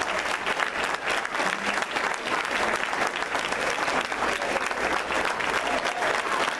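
Audience applauding steadily, many hands clapping at once as a standing ovation.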